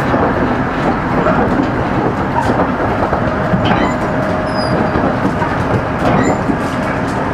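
Electric commuter train running along the line, heard from inside the car: a steady rumble of wheels on rail, with an occasional clack over rail joints.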